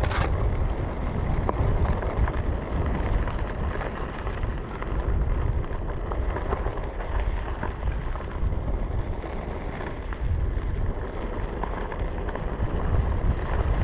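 Wind rumbling on the microphone during a ride over sand and gravel, with tyres crackling over the loose ground and a sharp knock right at the start.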